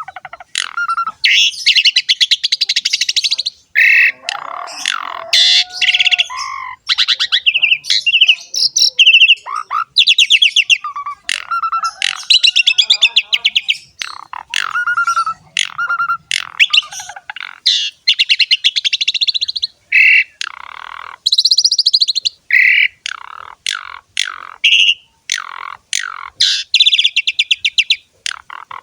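Asian pied starling (jalak suren) singing continuously: harsh, rapid rattling phrases mixed with short whistled notes, with brief pauses between phrases.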